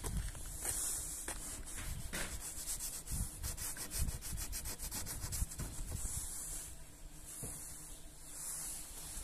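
Fingertip scratching and rubbing frost on a frozen car windshield: a gritty scraping that comes in several spells, with a quick run of short strokes in the middle.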